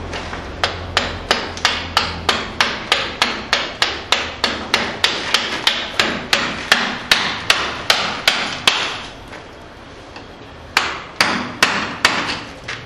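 Hand hammer striking a chisel into a block of Espeil stone in direct carving, in an even run of blows about two and a half a second. The blows stop for about two seconds, then resume.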